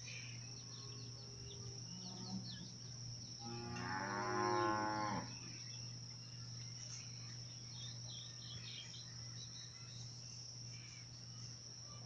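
A cow moos once, a call of under two seconds about three and a half seconds in. Behind it run a steady high insect drone, scattered small-bird chirps and a low steady hum.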